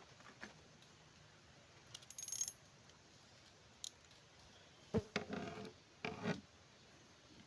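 Faint handling noises: a brief metallic jingle about two seconds in, a single click near four seconds, then a few short scraping, rubbing sounds near the end.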